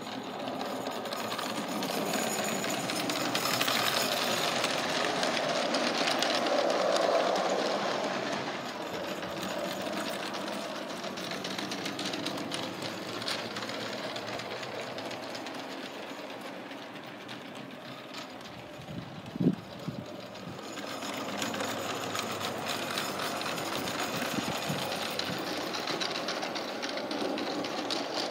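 G-scale garden-railway train, a battery-powered Salem loco hauling LGB wagons, running over the track with a steady rattle of wheels on rail. It grows louder about four to eight seconds in, falls back, and builds again in the last third. About two-thirds through there is a single sharp knock.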